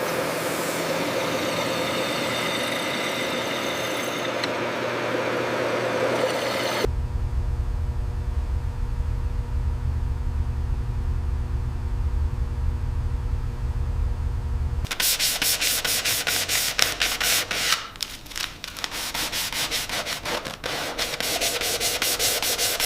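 Restoration workshop sounds in three clips cut together: rubbing or sanding, then a steady low machine hum from about 7 s in, then rapid rubbing strokes from about 15 s in.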